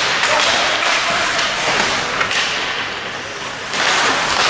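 Ice hockey skates scraping and carving on rink ice, with sticks and pucks knocking; the scraping comes in loud hissing bursts, easing off for a moment after about three seconds and surging again near the end.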